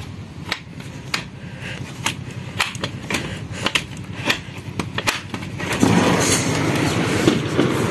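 Scattered sharp ticks, then about six seconds in a sliding glass window is pushed open and a steady rush of outdoor noise swells in.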